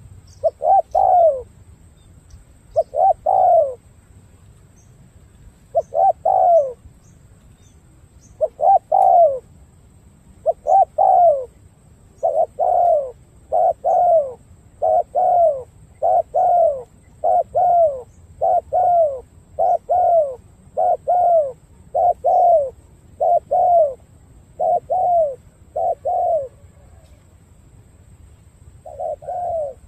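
Spotted dove cooing over and over: short phrases of a few falling coos, sparse at first, then about one every second and a half, with a pause near the end before it starts again.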